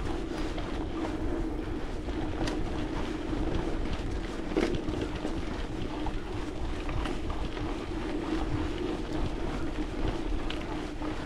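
Wind buffeting the microphone in a low rumble, over a steady low hum, with a few faint clicks.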